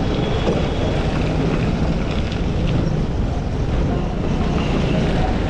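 Vespa scooter riding over a rough, broken gravel road: a steady engine hum with tyre and road noise, mixed with wind rushing over the microphone.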